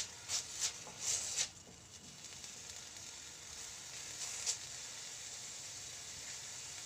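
Chopped onion and green bell pepper sizzling in oil in a steel kadhai. A wooden spatula scrapes and stirs in a few quick strokes during the first second and a half, and once more about halfway through.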